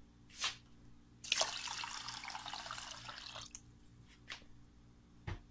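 Water poured into a stainless steel pot of washed glutinous rice, splashing for about two seconds and tailing off, with a few light knocks before and after the pour.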